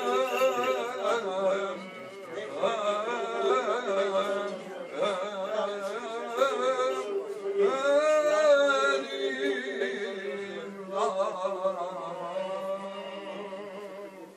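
Greek Orthodox Byzantine chant: a male voice sings ornamented, wavering phrases over a steady low held drone note (ison), with short breaths between phrases.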